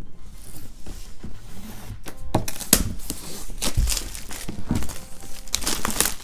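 Clear plastic shrink wrap crinkling and tearing as hands strip it off a cardboard kit box. It starts as soft rustling and turns into loud, sharp crackling about two seconds in.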